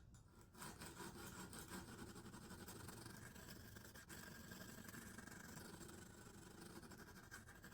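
Faint, continuous rasping of a coarse diamond hone on a Lansky guided-rod sharpener being stroked along a knife's edge, starting about half a second in.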